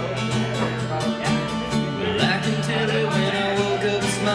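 Live country music: a singer with guitar accompaniment over a steady bass line.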